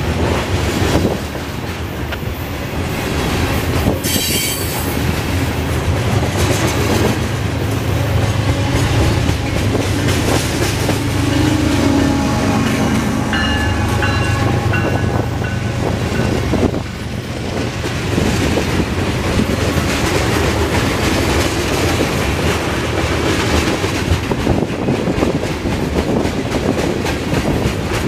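Freight cars (covered hoppers, then a boxcar and tank cars) rolling past close by: a steady heavy rumble of steel wheels on rail with clickety-clack over the rail joints, and a couple of short wheel squeals.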